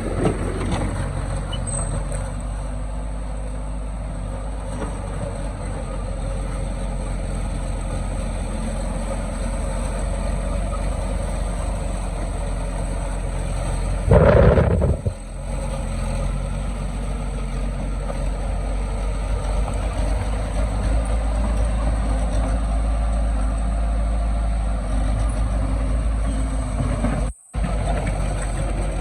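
Heavy diesel engine of earthmoving machinery running steadily, with a loud burst lasting about a second near the middle.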